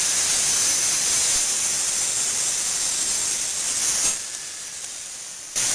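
Festool TS55 plunge track saw running and cutting through sheet stock along its guide rail, a loud steady hissing whir. The noise drops away about four seconds in, with a short loud burst again near the end.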